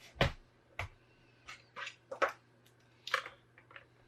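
Sharp plastic and metal clicks and knocks, about eight at irregular intervals, as a laptop hard drive and its parts are handled and fitted into the laptop.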